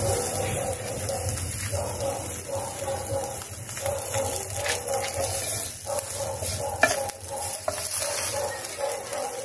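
Seasoned dried fish sizzling in a nonstick frying pan, turned with chopsticks: light clicks of chopsticks against the pan over the frying, with one sharp click about seven seconds in.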